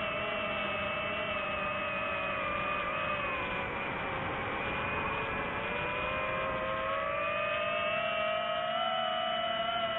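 Multirotor drone's motors and propellers whining steadily, the pitch dipping a little a few seconds in and climbing again toward the end as the throttle changes.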